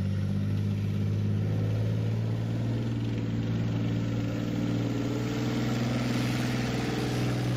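A Leopard 2 main battle tank's V12 diesel engine running steadily under load as the tank drags a pulling sled on a chain, with a constant low drone and a hiss on top.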